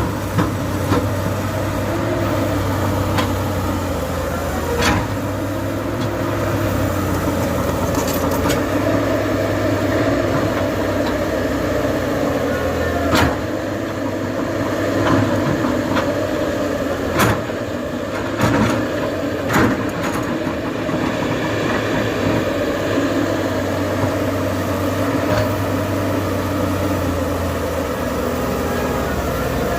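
Diesel engine of heavy earthmoving machinery running steadily, with a low hum and several sharp knocks scattered through it.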